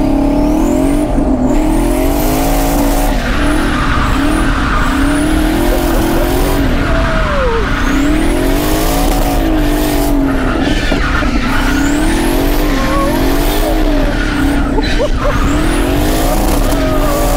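Twin-turbo 5.3-litre V8 of a Corvette C6 drift car being driven hard through a drift run, its revs rising and falling every few seconds with a high whistle climbing on each pull, over tyre squeal.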